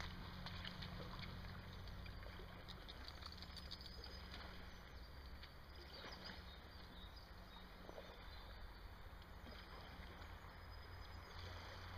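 Quiet riverside ambience: a faint, steady low hum with a few scattered faint clicks, and no clear paddle strokes.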